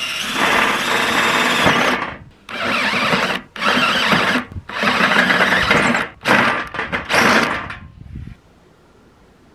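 DeWalt cordless drill running a titanium-coated HSS step drill bit through thin sheet metal, in about five runs with short pauses on the trigger. It stops about eight seconds in.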